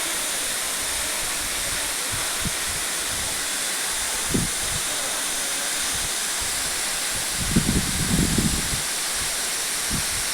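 Waterfall rushing with a steady hiss of falling water. A few low bumps break through about four seconds in, and a louder cluster of them comes around eight seconds in.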